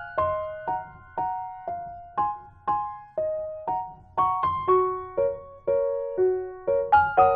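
Background music: a simple piano melody of single struck notes, about two a second, each fading before the next.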